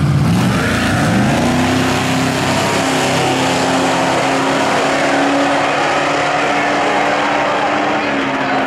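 Drag car engine at the starting line revving up about a second in and then held at a steady high pitch while staging, easing slightly near the end.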